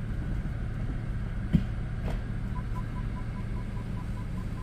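BMW 328 xDrive's engine idling with reverse selected, a steady low drone carrying the whirring from under the car that comes from a faulty xDrive transfer case which drives neither axle. A click about one and a half seconds in. From a little past halfway, the parking sensors beep evenly about five times a second.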